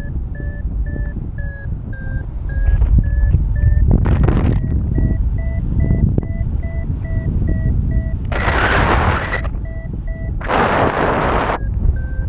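Paragliding variometer beeping about twice a second, the beeps stepping up in pitch about halfway through: the instrument's signal that the glider is climbing in lift. It plays over a steady low rush of wind on the microphone, with two loud bursts of wind noise near the end.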